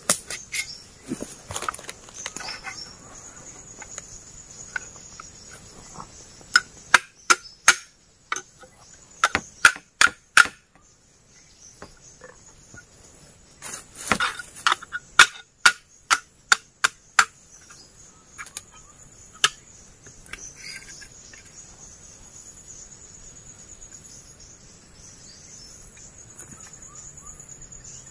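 Runs of sharp knocks and clicks of bamboo sticks being handled and struck, in two clusters, one about a quarter of the way in and one near the middle, with a few single knocks after. A steady high insect drone goes on underneath.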